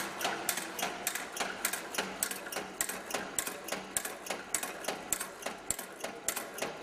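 Automatic packing-clip making machine running, its mechanism clicking in a steady, even rhythm of about four strokes a second.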